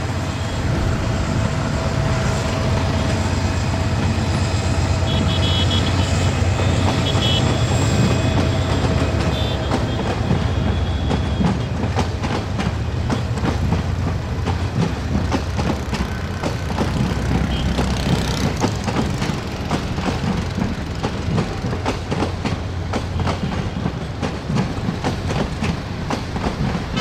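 Diesel-hauled passenger train passing at close range: the locomotive's low engine rumble dominates the first several seconds, then eases as the coaches roll by with a run of wheel clicks over rail joints and points. A few brief high squeals come about five to eight seconds in.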